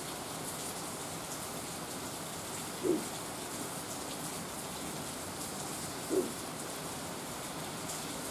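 Steady rain falling, with fine ticks of drops. Twice, about three seconds apart, a short low sound stands out above it.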